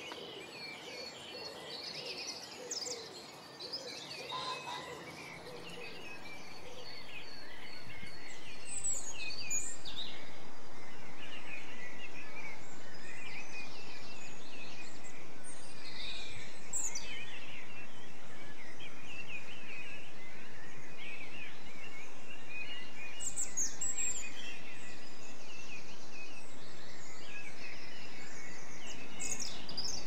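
European goldfinches twittering and chirping: a busy, continuous run of short high calls over a steady background hiss. The whole sound swells up in level between about six and ten seconds in, then holds steady.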